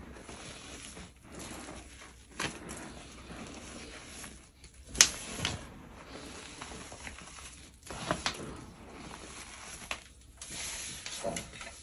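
Hands squeezing and crumbling thick, powdery gym chalk: a continuous soft crunching and sifting of chalk chunks and powder, broken by four sharper crunches, the loudest about halfway through.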